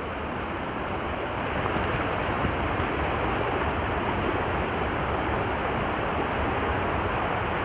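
Steady rushing of a river running over rocks, an even hiss of flowing water that grows slightly louder about a second and a half in.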